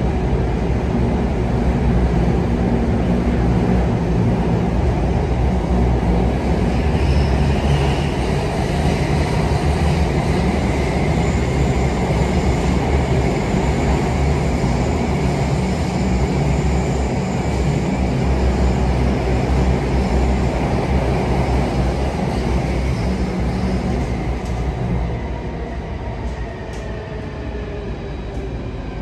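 Singapore MRT train running between stations, heard from inside the car: a steady rumble of wheels and motors. Near the end it eases off and a whine falls in pitch as the train slows.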